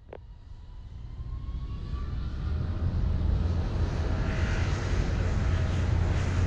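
Aircraft engine noise, a low rumble with a rushing hiss, that grows louder over the first three seconds and then holds steady, with a faint whine rising in pitch in the first two seconds.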